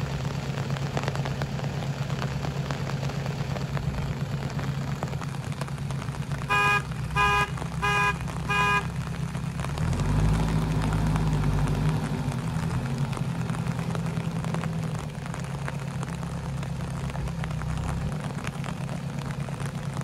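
JCB 3DX backhoe loader's diesel engine running steadily as the machine moves on the track, with four short horn toots about a third of the way in. Around the middle the engine revs harder for a couple of seconds, then settles back.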